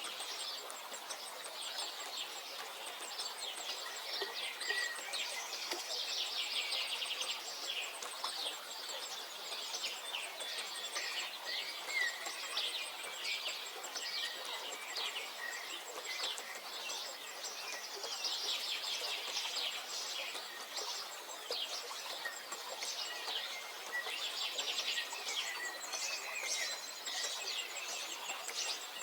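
Several songbirds singing at once, a continuous chorus of overlapping chirps and trills, with a faint, fast high-pitched ticking running underneath at times.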